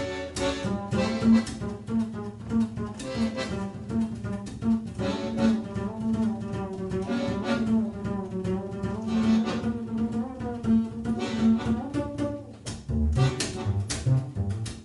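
Live acoustic instrumental music with a double bass prominent, under wavering held melody lines.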